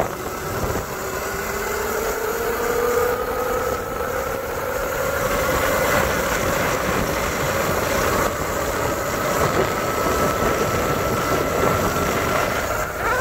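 Homemade 72-volt electric KTM kids' dirt bike at full throttle, its motor whine rising slowly in pitch as it accelerates toward top speed, then holding nearly steady. A steady rush of wind and road noise runs under it.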